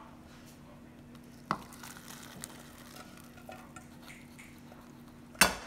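Ramen noodles and broth poured from a saucepan into a plastic bowl, a soft wet splashing with a sharp click about a second and a half in. Near the end a loud metal clank, twice in quick succession.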